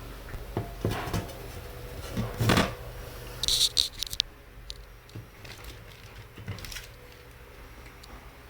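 Small clicks, taps and scrapes of hands and tools handling laptop parts during a repair. A louder scrape comes about two and a half seconds in, followed a second later by a quick cluster of sharp clicks.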